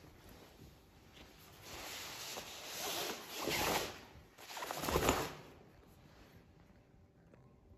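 Woven fabric of a bag rustling as it is handled, rising into two swishing swells: one from about two to four seconds in, and a louder, shorter one around five seconds.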